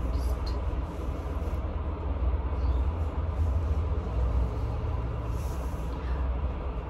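A steady low rumble, with a few faint rustles of a square scarf being pulled over the head and tied.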